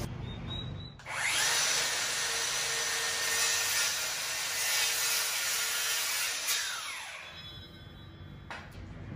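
Circular saw spinning up about a second in and cutting through a 2x4 board, then winding down from about seven seconds.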